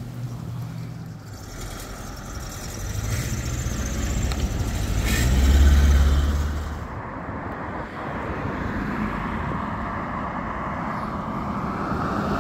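Road traffic passing close by. The engine and tyre noise of an SUV swells to a loud low rumble about six seconds in as it drives past and then fades. A pickup truck's approach builds again near the end.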